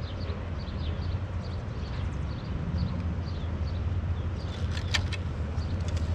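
Wind buffeting the microphone: a steady low rumble that rises and falls, with faint short high chirps scattered through it and a sharp click about five seconds in.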